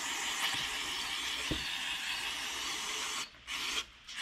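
Aerosol cleaner spraying through its red extension straw in a steady hiss, blasting grime off the outside of a Tecumseh carburetor. The spray stops twice for a moment near the end.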